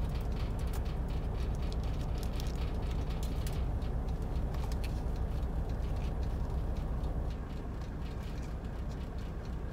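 Steady low hum of an idling truck engine, with aluminium foil being crinkled and folded into a small tray as irregular crackling clicks. The crackling eases and the level drops slightly about seven seconds in.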